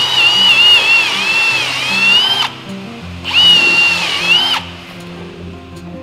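Electric hand drill boring into a Douglas fir frame in two runs, about two and a half seconds and then a shorter one, with its motor whine wavering in pitch as the bit loads up. Background music plays underneath.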